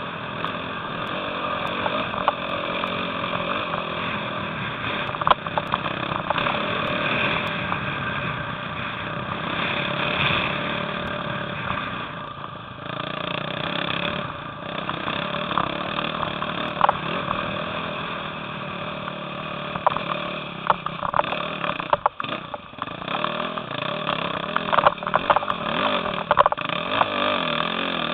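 Enduro dirt-bike engine running steadily while riding a rough dirt track, with frequent short knocks and rattles from the bumpy ground. The engine sound drops briefly about two-thirds of the way through.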